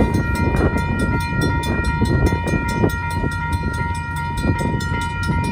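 A railroad crossing bell rings rapidly and steadily while a freight train of covered hopper cars rolls through, its wheels rumbling and clanking on the rails.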